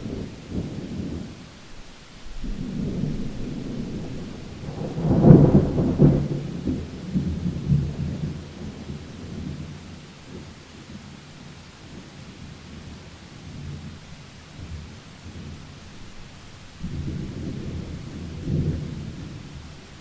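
Thunder rolling over steady rain hiss: low rumbles come and go, the loudest swelling about five seconds in and dying away, with another roll near the end.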